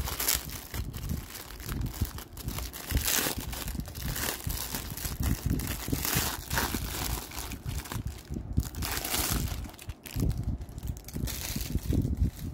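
Clear plastic wrap crinkling and rustling in irregular bursts as it is handled and removed from a folded cotton tea towel, with some dull handling thumps.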